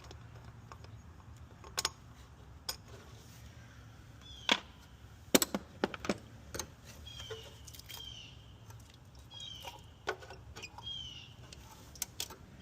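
Scattered sharp metallic clinks and knocks of hand tools, loudest in the middle. In the second half a bird chirps repeatedly, short high calls about once a second.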